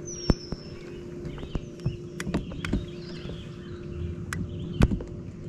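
Scattered sharp clicks and knocks from fishing tackle being handled on a bass boat, the loudest about a third of a second in and again near the end, over a steady low hum. Birds chirp faintly in the background, and a short falling whistle sounds right at the start.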